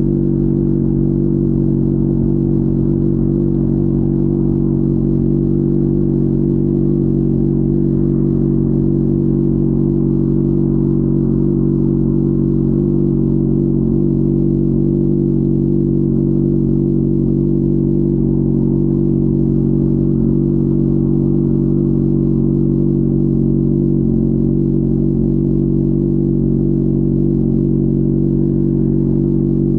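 Honda CBR600RR's 599 cc inline-four engine running under way at steady revs, its pitch holding level throughout as the motorcycle cruises.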